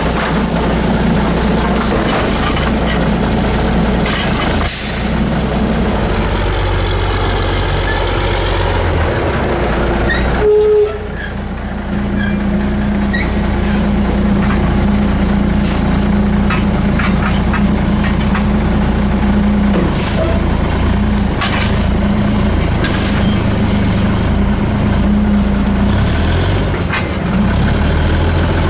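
1982 American LaFrance CTC garbage truck's diesel engine running as the truck pulls up, with a short air brake release about ten seconds in. A steady engine drone follows, with clunks as the Heil Formula 7000's automated side arm grabs and lifts a trash cart.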